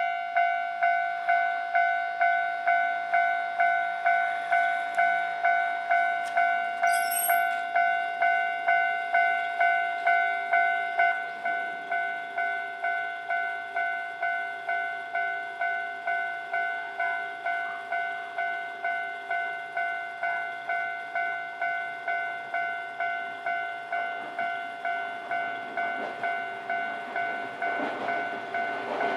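Japanese level-crossing warning bell ringing in an even, repeated electronic clang of about one and a half strikes a second, stepping down in loudness about eleven seconds in. Near the end the rumble of the approaching train begins to rise under the bell.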